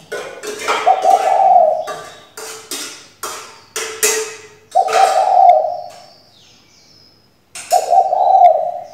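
Spotted dove hen cooing loudly: a run of short, clipped notes, about two a second, between three longer low coos, which come about a second in, near the middle and near the end. This is the call of a decoy hen, used to spur male spotted doves into calling.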